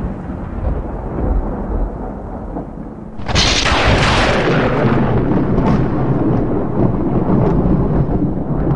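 Loud, low rumbling sound effect, with a sudden burst of hiss about three seconds in, after which the rumble carries on.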